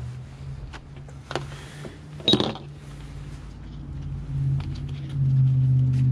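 Plastic makeup compacts and boxed palettes clicking and clacking as they are picked up and handled, with one sharp clack a little over two seconds in. Underneath runs a steady low hum that grows louder near the end.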